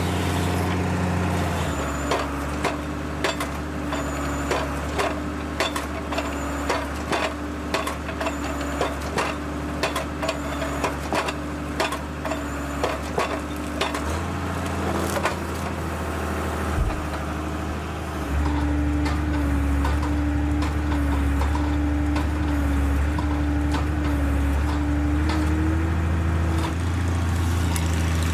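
Heavy tree-cutting machine's engine running steadily while wood cracks and splinters again and again, the snapping dying away about halfway through; the engine then runs on louder and steadier.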